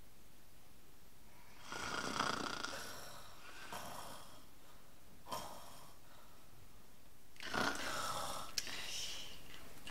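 A person imitating snoring for sleeping sock puppets: about four breathy snores a second or two apart, the last one longest. A small click near the end.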